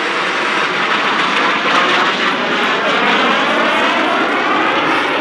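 Loud, steady jet noise from a formation of Aermacchi MB-339 PAN jets and their Viper turbojets flying past, with a slowly sweeping, phasing quality as they move across the sky.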